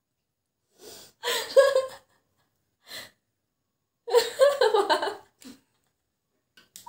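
Women laughing in short breathy bursts, the main ones about a second in and again about four seconds in, with silent gaps between.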